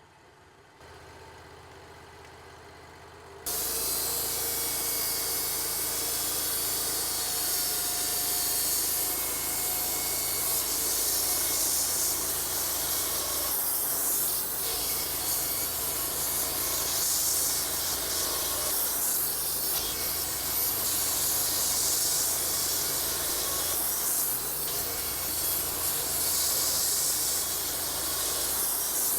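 Wood-Mizer LT-35 band sawmill cutting through a wooden beam: a steady, loud hissing rasp of the blade in the wood that starts abruptly about three and a half seconds in.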